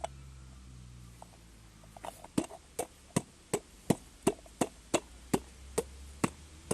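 A series of about eleven sharp knocks in a steady rhythm, roughly three a second, starting about two seconds in, over a faint low hum.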